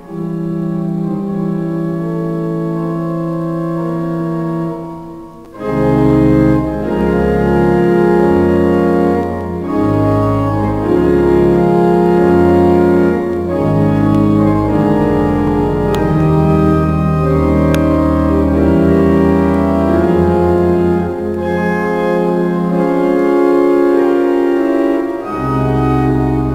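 Pipe organ of Eton College Chapel playing: one chord held for about five seconds, then, after a short break, the full organ comes in with deep bass notes under the changing chords.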